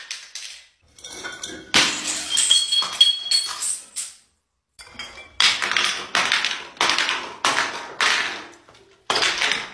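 Glass bottles tumbling down stone stairs: a rapid series of hard clinks and knocks as they hit step after step, some glass ringing, with shattering among them. The impacts come in two runs with a short silent gap about four seconds in.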